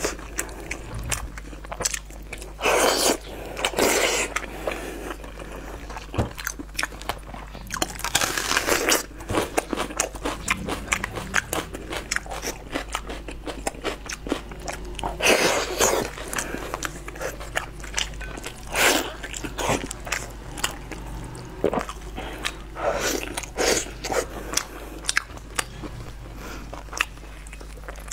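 Close-miked chewing and biting of braised pork in a sticky dark sauce, with many short wet clicks and several sharper, louder bites scattered through.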